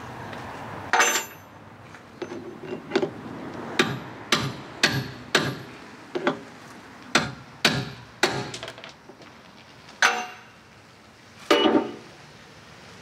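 Hammer blows on the motor bracket at an old boat's transom: about a dozen sharp, irregularly spaced strikes, a few of them ringing.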